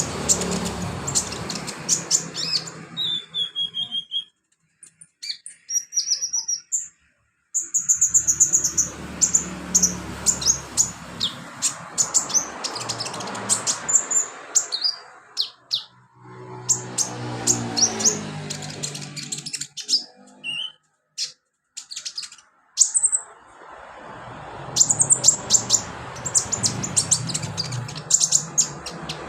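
Sunbird (kolibri/conin) singing: rapid runs of high, sharp chirps and short trills, broken by several brief pauses.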